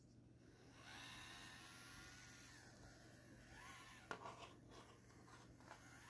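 Axial SCX24 Deadbolt 1/24-scale RC crawler's small electric motor and gear drive, whining faintly as the truck drives and climbing and dipping in pitch with the throttle, then a few sharp clicks from about four seconds in as it works onto the rocks.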